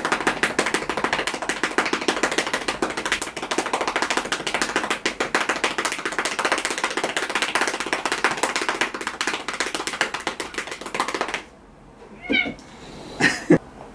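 A hand rapidly patting a long-haired cat's rump, a fast run of soft pats lasting about eleven seconds before stopping. The cat gives two short meows near the end.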